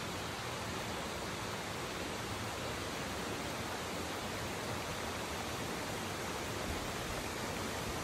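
Shallow rocky river flowing over and around stones, a steady rushing of water.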